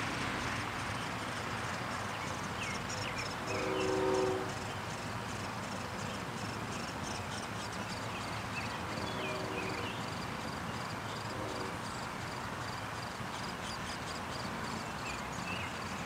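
Steady outdoor background noise. About four seconds in comes a short, distant droning tone of several pitches sounding together, like a horn, with fainter repeats later. Faint bird chirps are scattered through.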